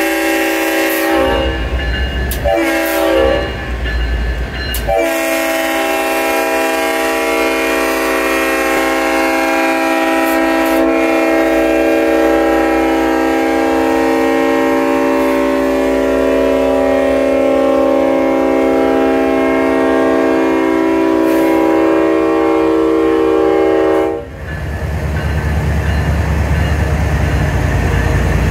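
Chime air horn of CSX locomotive 3194, a GE ES44AH diesel, blowing three blasts: one that ends about a second in, a short one around three seconds in, then a long one held for nearly twenty seconds that cuts off suddenly. After it, the diesel's low rumble and the clatter of wheels over the rails as the locomotive passes close by.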